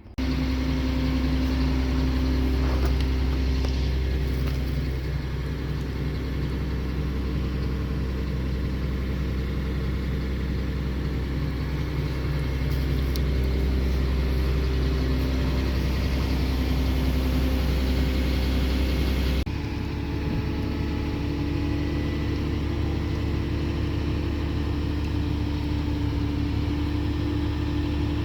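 Wheel loader's diesel engine running at a steady idle, with an even low drone. The sound shifts abruptly about two-thirds of the way through.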